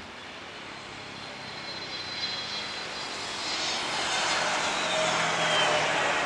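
Twin-engine jet airliner (Airbus A320) passing low on landing. The engine roar grows steadily louder, and a high fan whine drops in pitch as the plane goes by.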